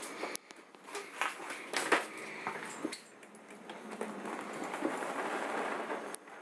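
Light handling noises: scattered sharp clicks and knocks, then a steadier rustling from about halfway through.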